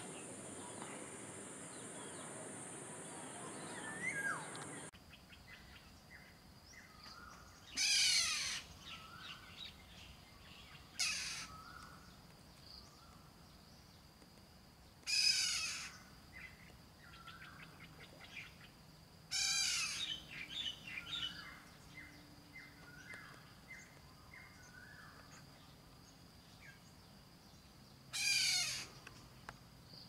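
Oriole calling: five loud harsh calls, each under a second, spread through the stretch after a cut about five seconds in, with softer short chirps between them. The first few seconds hold a steady hiss with one rising whistle.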